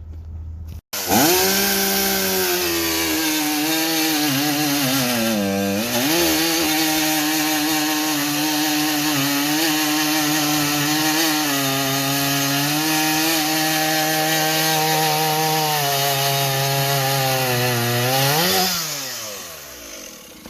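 Ported Stihl 038 Magnum two-stroke chainsaw with an expansion-chamber pipe cutting through a log at full throttle for about seventeen seconds, its engine note holding steady under load apart from a brief dip about five seconds in. Near the end it comes out of the cut and the revs fall away.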